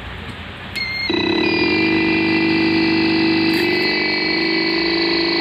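Electric knapsack sprayer's pump starting about a second in, after a steady hiss, and running steadily, a motor hum overlaid by a high-pitched whine from its built-in buzzer. The buzzer is a low-battery warning, the battery voltage dropping to about 9.6 V under load; the owner suspects the battery needs charging.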